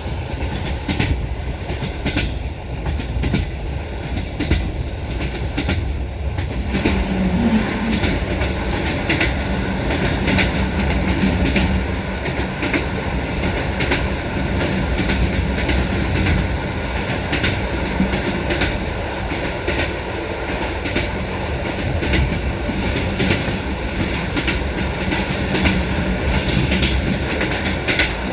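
Train wheels clattering over rail joints in a steady clickety-clack over a continuous rolling rumble. A low steady hum comes in about seven seconds in.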